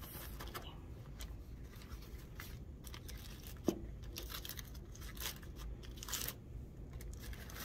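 Aluminium foil crinkling and rustling as a paper towel blots water off it and the foil is worked loose from the rim of a springform pan, with one sharp tap about halfway through.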